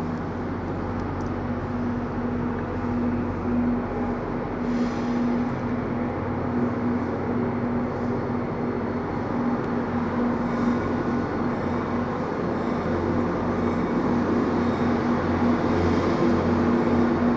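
Train running with a steady mechanical drone and a steady low hum, getting slightly louder toward the end.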